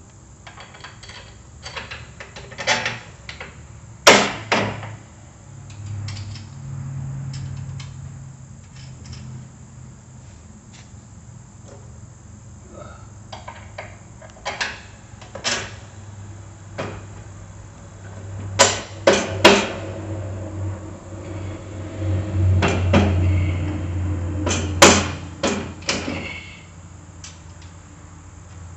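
Scattered metal clinks and knocks of bolts and nuts being put back into a snow blower's frame by hand, with a low rumbling noise at times as the parts are shifted.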